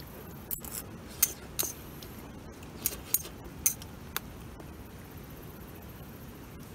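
Metal spoon clinking against a stainless steel camping pot while scooping cooked rice: about eight short, bright clinks in the first four and a half seconds, then only faint background.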